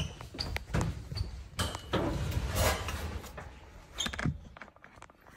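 Scattered light knocks and clatter of handling, with a short high tone about one and a half seconds in.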